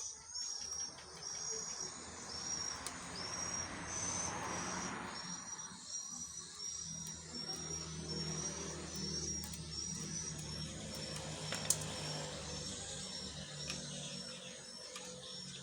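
Insect chirping in an even rhythm, over a low hum. A rushing noise swells and fades between about two and five seconds in.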